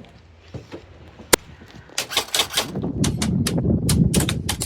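Airsoft guns firing: a single sharp shot a little over a second in, then rapid strings of shots from about two seconds on, over a low rumble.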